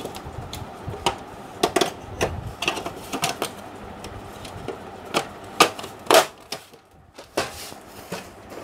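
Grey plastic side cover of an HP LaserJet P1020 Plus printer being fitted and pressed onto the chassis by hand: a run of irregular plastic clicks and knocks as it is seated, the loudest a little after six seconds in.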